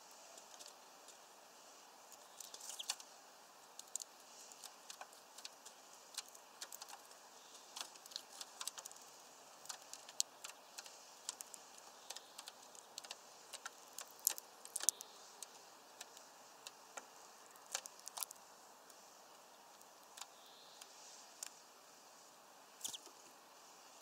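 European greenfinch cracking sunflower seeds and pecking at husks on a feeder tray: faint, irregular sharp clicks and ticks, sometimes several close together, over a steady hiss.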